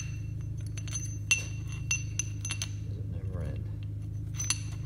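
Metal chain links and a metal chain fitting clinking against each other as they are worked together by hand: a handful of sharp, ringing clinks, the loudest a little over a second in, over a steady low hum.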